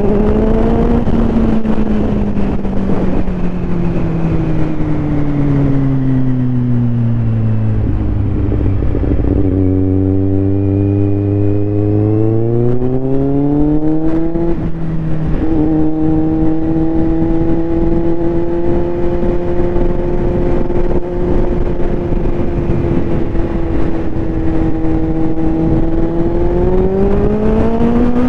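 Kawasaki Z750R's inline-four engine breathing through a LeoVince SBK aftermarket exhaust while riding. The engine note sinks slowly as the bike slows over the first third, then climbs, breaks briefly near the middle, holds steady, and climbs again near the end. Rushing wind noise sits underneath throughout.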